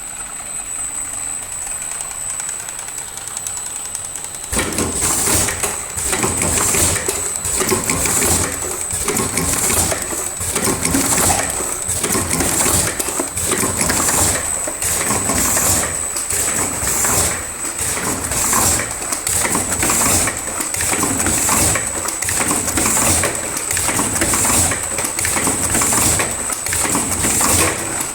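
Automatic vertical cartoning machine running, with a steady high whine. About four and a half seconds in it gets much louder, a dense mechanical noise that swells and fades in a regular cycle about every second and a half as it packs boxes.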